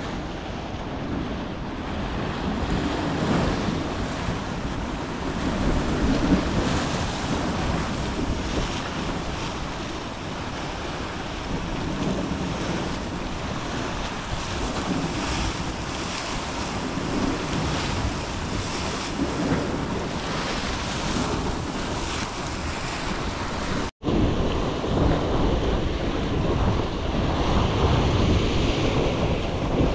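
Rough sea surf washing against rocks, with wind buffeting the microphone; a steady wash of noise broken only by a momentary gap about 24 seconds in.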